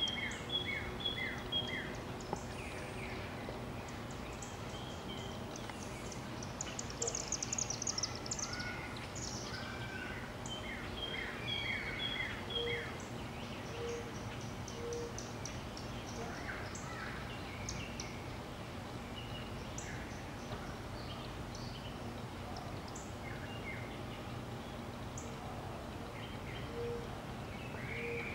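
Birds chirping and singing, with a fast high trill about seven seconds in and short low notes repeating now and then, over a steady low background hum.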